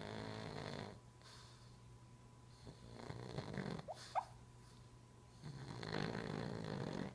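Silver pug snoring in its sleep: three loud, rasping snores about two to three seconds apart, the middle one ending in a couple of brief rising squeaks.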